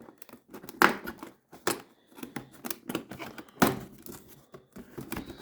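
Cardboard advent calendar door being pried and torn open by hand: irregular clicks, knocks and scraping of card, with two louder knocks about a second in and past the middle.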